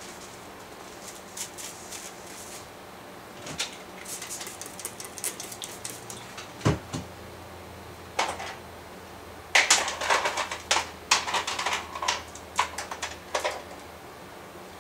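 Plastic perm rods clicking and rattling as they are handled, mixed with light rustling of hair and papers. There is a dull knock about halfway through, and a dense run of clattering over much of the second half.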